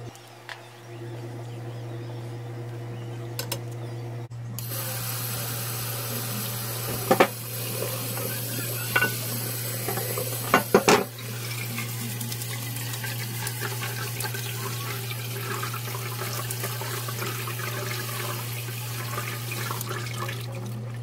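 Water running and splashing into a stainless steel sink as cooked somen noodles are drained and rinsed in a strainer. The water starts about four seconds in, with a few sharp clanks of cookware against the sink, and a steady low hum runs underneath.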